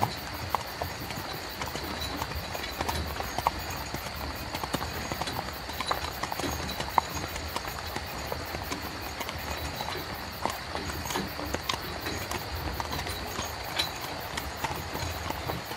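Horse hooves clip-clopping in an uneven run of knocks, over the low rumble of a horse-drawn carriage's wheels.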